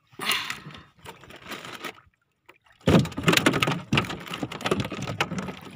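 Water splashing and sloshing against the hull of a small outrigger fishing boat, in uneven noisy bursts. It cuts out completely for about a second midway, then comes back louder and denser.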